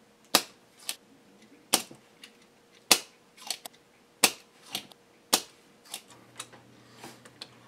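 Sharp snapping clicks of a hand tool while an RF modulator is taken off a circuit board: a loud snap about every 1.2 seconds, each followed by a softer click.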